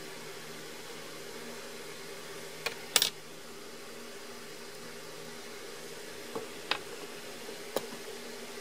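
Small metal parts of a soldering iron clicking against each other and being set down on a wooden desk: a few short sharp clicks, the loudest about three seconds in and more near the end, over a steady background hum and hiss.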